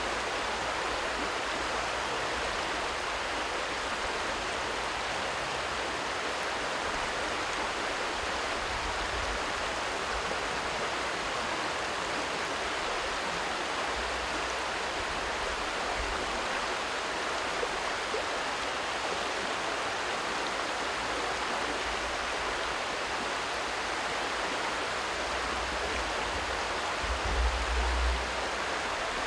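Steady rush of flowing river water, an even hiss with no let-up, with a brief low rumble near the end.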